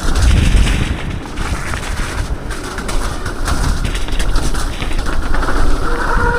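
Mountain bike on an enduro trail heard through the rider's action-camera mic: steady rumbling wind buffeting with tyre and chassis rattle. A short high squeal comes in near the end.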